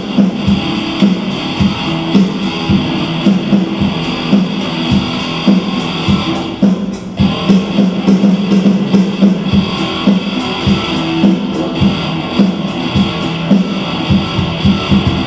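Background music: a guitar-led track with strummed chords and a steady beat.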